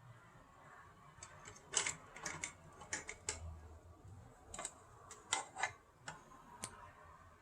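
A dozen or so sharp, irregular clicks and taps from hands working on a tower fan's parts during disassembly or repair.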